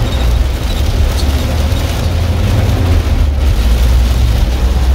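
Steady road and engine rumble of a car on the move, very heavy in the low end.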